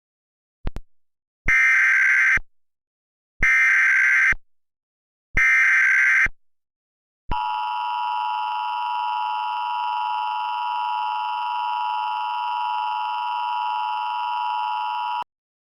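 Emergency Alert System header and attention signal: three one-second bursts of SAME header data, about two seconds apart, then the steady two-tone EAS attention tone for about eight seconds. This sequence marks the start of a new emergency alert.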